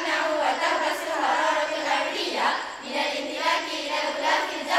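A group of girls' voices reciting in unison, a choral chant in the manner of a speech choir.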